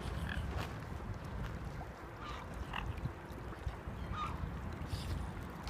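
Waterbirds on a lake calling: about half a dozen short, scattered calls over a low steady rumble.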